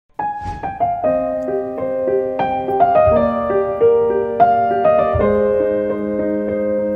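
Soft piano music: single notes struck one after another, each ringing on and overlapping the next over held lower notes.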